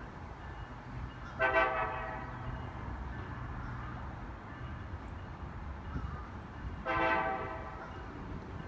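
CSX GP38-3 diesel locomotive's air horn sounding two short blasts about five seconds apart, over a low steady rumble from the approaching train.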